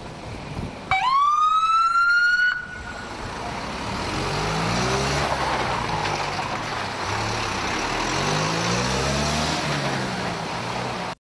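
A fire truck's siren gives one short whoop about a second in, rising in pitch, held for over a second, then cut off. After it the heavy truck runs close by as a loud, steady wash of engine and road noise that swells slowly up and down.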